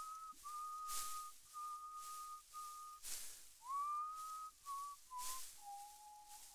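A slow tune whistled in a single clear tone, in held notes with short breaks, with a rising slide into one note about halfway and the pitch stepping down lower near the end. Soft breathy whooshes come and go about once a second.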